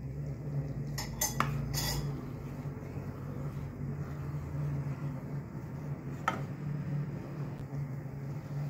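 A ladle stirring thick, boiling payasam in a stainless steel pot, clinking against the pot three times in quick succession about a second in and once more later, over a steady low hum.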